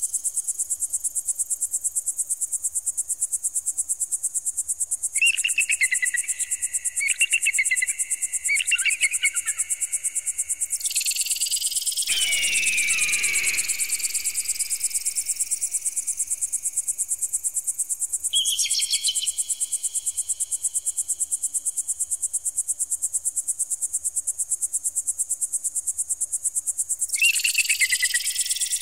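Electronic bird-repeller sound: a continuous high-pitched, rapidly pulsing buzz with repeated rising sweeps. Three short chirping bursts come a few seconds in, a falling screech comes near the middle, and more chirps sound later and again near the end.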